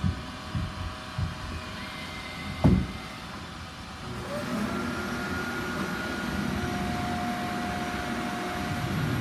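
Robot vacuum running, with a few knocks and one louder bump about two and a half seconds in. A little after four seconds a louder vacuum motor spins up and keeps running with a steady whine.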